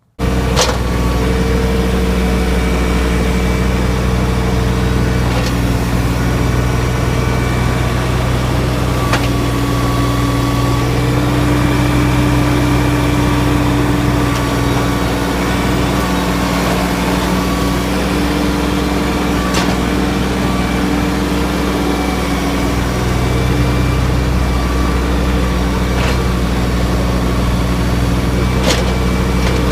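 Engine of a digging machine running steadily while a trench is dug, its pitch shifting slightly as the load changes, with a few sharp clanks.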